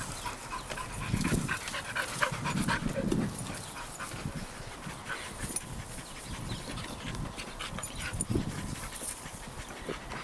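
Dog panting, tired out.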